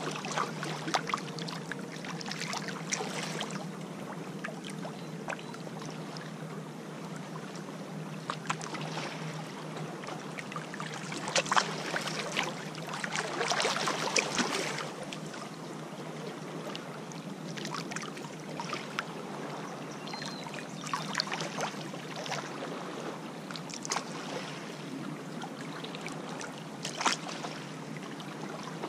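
Small lake waves lapping and splashing against a rock ledge at the water's edge, in irregular slaps with a longer, louder wash about halfway through. A steady low hum runs underneath.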